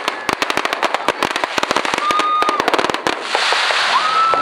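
Fireworks going off in a dense string of rapid crackling pops. Two short steady whistles come about two seconds in and near the end, and a hissing rush builds over the second half.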